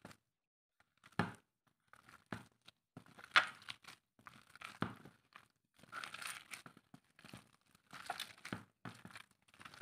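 A hand in a disposable glove kneading minced mutton mixed with egg, breadcrumbs and cornflour in a bowl: irregular scrunching and crinkling of the glove and the crumbly mince, in short uneven strokes from about a second in.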